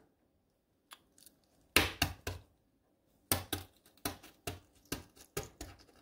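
Hard-boiled egg shell being cracked against a countertop: a few sharp knocks near two seconds in, then a quicker run of cracks, about four a second, over the last half.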